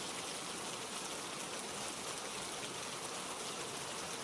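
Steady rain falling, an even hiss with faint scattered drop patter.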